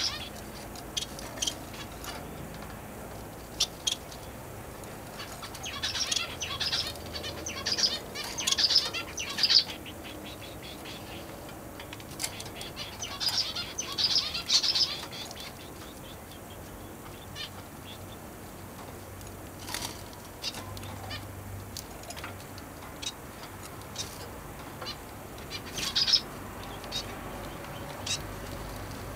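A small caged finch chirping in several bursts of rapid high notes, separated by quieter stretches. Occasional wing flutters and light taps come as it hops about the cage.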